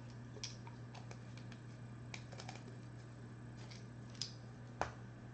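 Scattered light clicks and taps, about a dozen, with a sharper knock near the end, over a steady low electrical hum.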